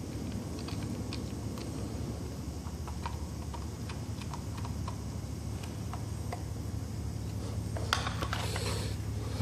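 Light, scattered metal clicks and taps of small screws and tools being handled while a radio's case is reassembled, with a denser rattle of clicks near the end, over a steady low hum.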